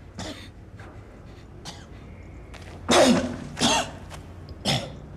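A man coughing in short bursts, about five times, the loudest two close together about three seconds in.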